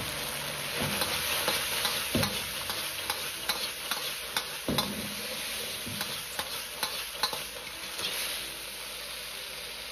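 Diced fried eggplant sizzling in sweet-and-sour sauce in a hot wok as it is stir-fried fast. A steel ladle scrapes and knocks against the wok every second or so over a steady sizzle.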